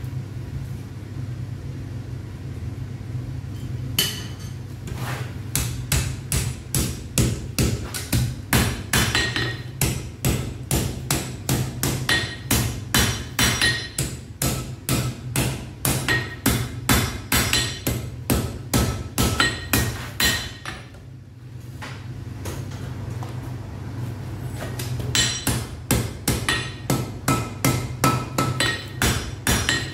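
A blacksmith's hammer striking hot iron on an anvil. A steady run of blows, a few a second, starts about four seconds in; many carry a short metallic ring, and there is a pause of a few seconds just past the middle. A steady low hum runs underneath.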